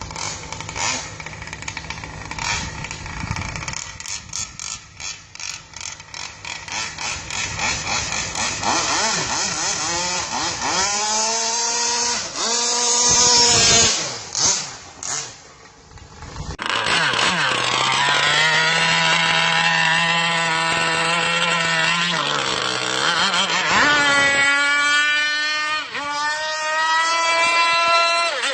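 Small two-stroke brush-cutter engine of an RC longtail boat running, uneven and pulsing at first, then revving up in several rising whines. It cuts out briefly about halfway, then runs at high revs, its pitch rising and falling.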